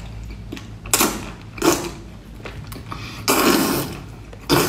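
Wet slurping and sucking as a chili-coated octopus tentacle is drawn into the mouth: four short slurps, the longest about three seconds in.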